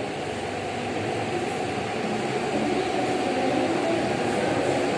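Electric wall fan running with a steady whir.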